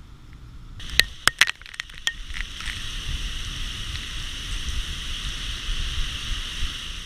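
Hurricane Irma's wind and heavy rain. At first there is a low wind rumble on the microphone. Then, about a second in, several sharp cracks come and a steady loud hiss of rain sets in, with gusting wind.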